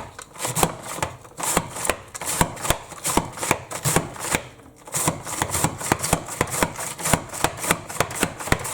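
Cabbage being chopped by hand: a fast run of sharp chopping strokes, several a second, with a short pause about halfway through.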